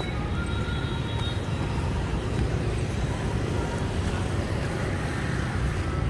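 City street traffic: motorbikes and cars passing in a steady rumble.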